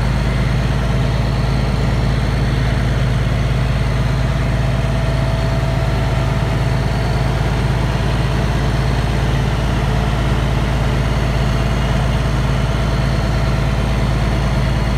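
Engine powering a Hiab knuckle-boom crane idling steadily during a test run of the hydraulics after the lift cylinder holding valve was replaced.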